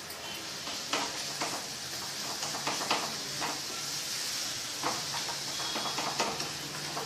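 Thick carrot halwa sizzling with a steady hiss in a pan as a wooden spatula stirs it, scraping the pan in irregular strokes. The mixture is nearly done, its water cooked off.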